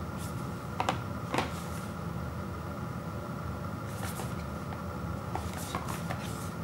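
Cardboard product box handled in the hands: a few sharp taps about a second in, then short scrapes and rubs of fingers on the cardboard as the box is turned over, twice, over a steady background hum.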